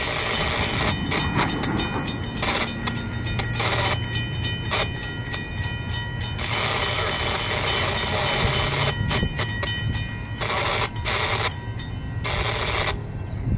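A manifest freight train passing, a low steady rumble under repeated horn blasts of uneven length. The horn cuts off shortly before the end.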